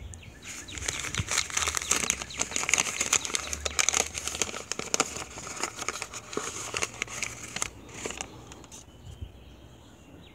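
Brown paper wrapping crinkling and crackling as it is pulled off a folding knife by hand, tapering off about eight seconds in.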